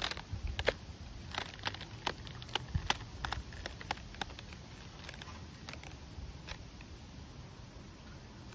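Scattered sharp clicks and crackles, crowded together in the first half and few after that, over a steady low rumble of wind on the microphone.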